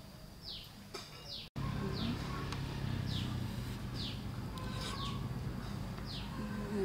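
A bird repeating a short, high, falling call about once a second, over low steady outdoor background noise. There is a brief dropout about one and a half seconds in.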